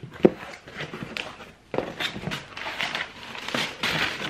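Cardboard box flaps opened and a brown paper bag pulled out, rustling and crinkling, with a sharp knock near the start.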